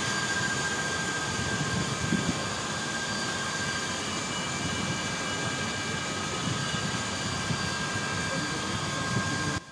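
Electric water pump motors running steadily, a constant hum with a high whine over it, then dropping away abruptly near the end.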